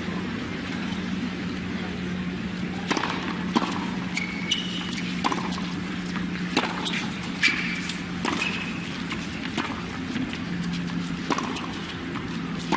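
Tennis rally: sharp racket strikes on the ball about once a second over several seconds, with brief high squeaks of shoes on the hard court, over a steady stadium hum.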